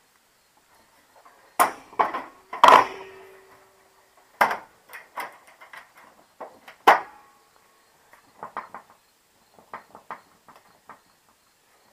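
Thin sheet-metal tank shroud of a patio heater being handled: a string of knocks and clanks, the loudest about three seconds in with a brief metallic ring, as the access door is swung shut, then lighter taps and rattles.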